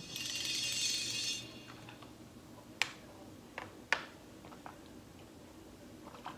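Drinking from a thin plastic water bottle: a hiss for about the first second and a half, then a few sharp clicks of the plastic as the bottle is tipped up.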